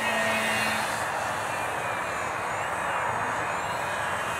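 Motor and propeller of a small radio-controlled flying-wing plane running in flight. It makes a steady whine whose pitch wavers up and down as the plane moves and throttles.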